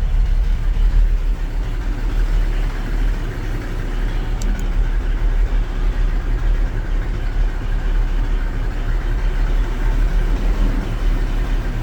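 V8 engine of a Toyota Land Cruiser FJ45LV idling steadily, with two faint clicks about four and a half seconds in.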